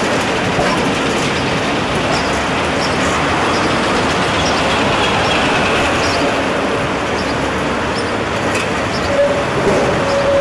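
1950s ex-Vestische articulated tram rolling slowly round a curve of track: a steady rumble of wheels on rail with faint regular clicks and a faint high whine around the middle. A steady horn note starts near the end.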